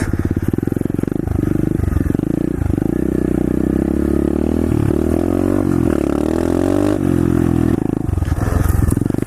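Pit bike's small single-cylinder engine being ridden, revving up and falling back again and again as the throttle is worked.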